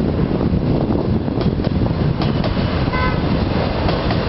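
Passenger train coaches rolling past on the tracks, a steady low rumble with a few faint clicks, and about three seconds in a short, high horn toot.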